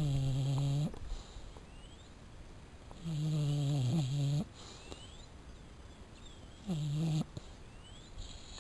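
A sleeping pet snoring: three loud, low-pitched snores, the first about a second long, the second about a second and a half, the third about half a second, each a few seconds apart.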